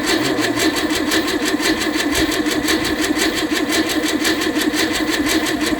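1951 Chevrolet straight-six being cranked over by its starter motor at a fast, even rhythm without firing: fuel has not yet reached the carburetor after six months of sitting, which the owner suspects is the fuel not being picked up.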